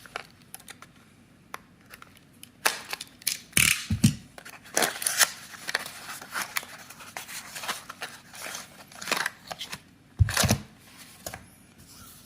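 Packaging being handled and opened by hand: irregular rustling, tearing and crinkling with scattered sharp clicks and a few dull thumps.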